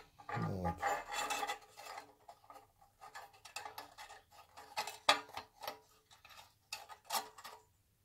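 Steel ruler scraping and clicking against the wire pot supports and brass burner bell of a PT-1 primus stove as it is set across the top: a scattered string of faint scrapes and small ticks.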